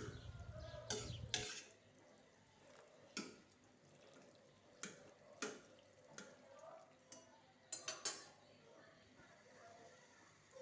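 Kitchen utensils clinking against a pot and dish, with light dripping water, as blanched grape leaves are lifted out of the cooking water: about eight separate clinks, two close together near the end. A low steady hum stops about a second and a half in.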